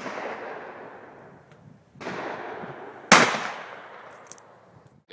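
Three shotgun shots from a clay-shooting range: one at the start, one about two seconds in, and the loudest and sharpest about three seconds in. Each trails off in a long echo.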